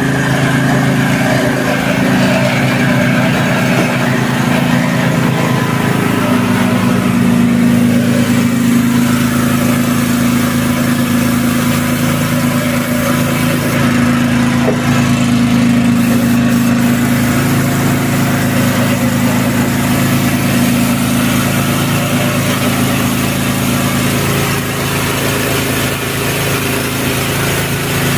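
Mitsubishi Canter truck's diesel engine idling steadily.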